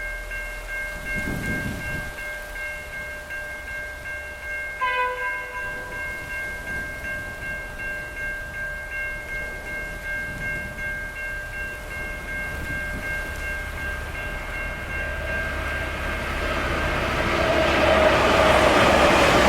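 Freight train's wagons rolling past with a steady, rhythmic clatter of wheels over the rail joints and a steady high ringing tone from the wheels and rails. The rushing noise grows louder near the end.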